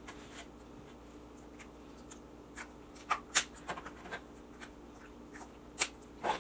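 Hands handling takeout containers and utensils at a table: scattered light clicks, taps and scrapes, with a few sharper clicks about three seconds in and again near the end.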